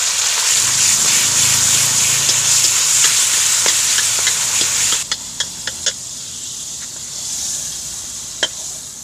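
Pork fat sautéed with onion, garlic and ginger sizzling in a wok as a wooden spoon stirs it. About five seconds in the sizzling cuts off, and a few light knocks and scrapes of the wooden spoon on the wok follow as the mixture is scraped out.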